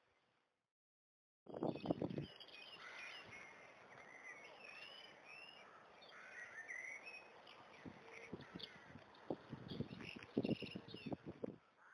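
Small birds singing outdoors, many short chirping and warbling phrases, starting suddenly about a second and a half in and cutting off just before the end. Low rumbling thumps come at the start of the birdsong and again near the end.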